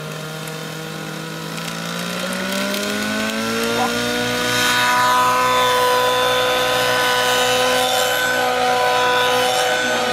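Nitro glow engine of an SAB Goblin Black Nitro 700 radio-controlled helicopter spooling up: its pitch rises smoothly over a couple of seconds as the rotor comes up to speed, then holds steady and louder as the helicopter lifts off and climbs.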